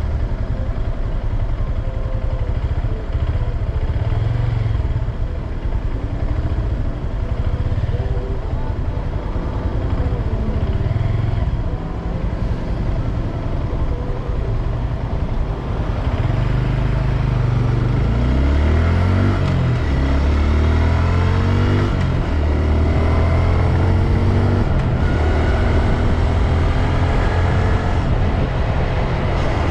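2022 Honda Grom's 124 cc single-cylinder engine running on the move, fairly steady at first. A little past halfway it gets louder, its pitch sweeps up and down for a few seconds, then holds steady at a higher note.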